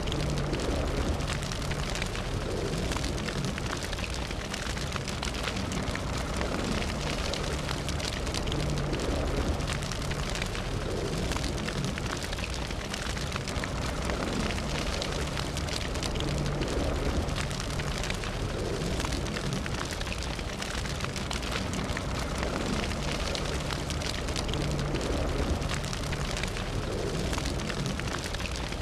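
Fire burning steadily, a constant low roar of flames with many small crackles and pops throughout.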